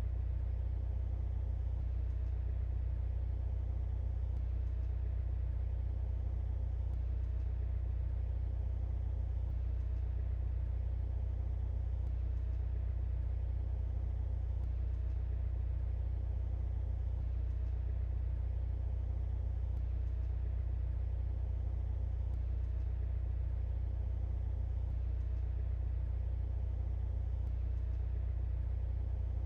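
2023 Mercedes-AMG C43's turbocharged four-cylinder engine and road noise as the car cruises at an even pace: a steady low rumble that neither rises nor falls.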